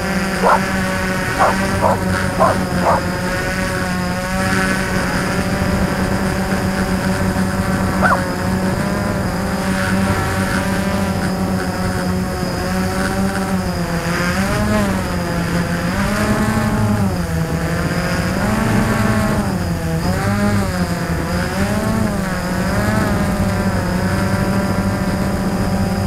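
Small quadcopter's electric motors and propellers whining steadily, heard from on board. About halfway through, the pitch starts to rise and fall over and over as the throttle changes. A few short sharp sounds cut in during the first three seconds and once more about eight seconds in.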